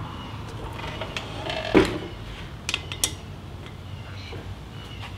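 Metal tool clicks and knocks as a spoke wrench is worked on the spoke nipples of a chrome motorcycle wire wheel. A louder knock comes about two seconds in, with a pair of sharp clicks soon after, over a low steady hum.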